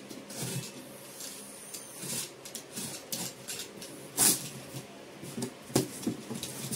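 Box cutter slitting the packing tape along a cardboard carton, then the cardboard flaps being pulled open: a run of short scratchy scrapes and rustles, with sharper cracks about four seconds in and again near six seconds.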